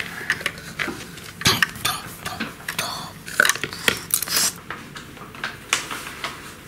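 Hard plastic Lego pieces and minifigures clicking and clattering as they are handled and set against one another: a string of short, sharp clicks at irregular intervals.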